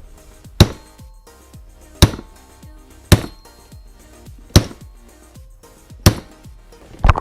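Hammer striking a differential pinion to drive it through its housing: six sharp metal blows, roughly one every second and a half.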